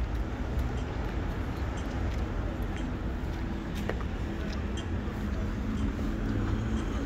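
Steady low rumble of city traffic, with faint scattered clicks.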